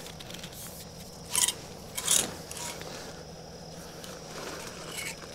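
Fabric of a one-piece pop-up shower tent rustling and rubbing as it is handled and unfolded, with two louder rustles about a second and a half and two seconds in.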